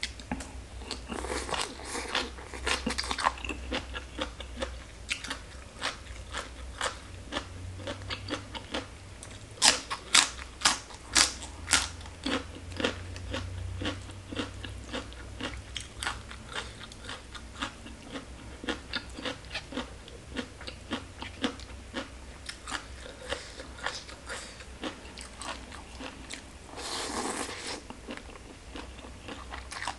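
Close-miked crunching and chewing of shredded green papaya salad eaten by hand: steady crisp bites and wet chewing, with a run of about five loud crunches around ten to twelve seconds in.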